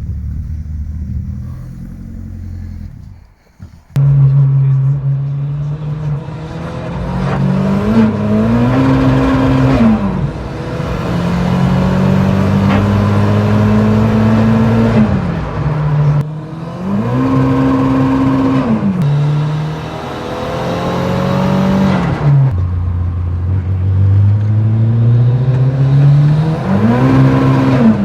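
Turbocharged 1.3-litre eight-valve four-cylinder of a 1989 VW Polo 86c, loud and revving hard. After a brief drop about four seconds in, it climbs in pitch again and again, each run falling back abruptly as the revs come down.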